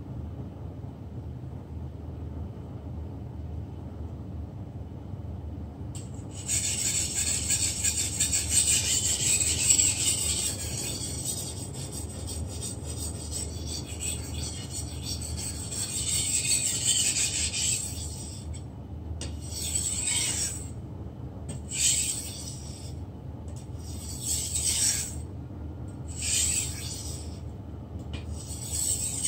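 A long steel knife blade ground on a whetstone by hand: first a continuous scraping, then separate strokes about every second and a half to two seconds. A low steady hum sounds underneath.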